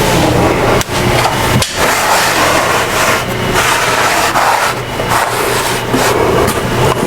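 Vacuum cleaner running steadily, loud, sucking up sawdust after hole-saw cutting, with a few brief dips in the noise.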